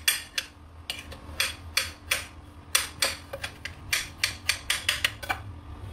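A kitchen knife chopping potato on a ceramic plate: the blade strikes the plate in quick runs of sharp clicks, about three to four a second, with short pauses between runs.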